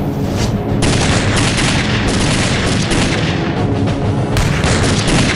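Battle sound effects: dense, rapid gunfire and booms over a rumble. They swell up and break in loud and sudden about a second in.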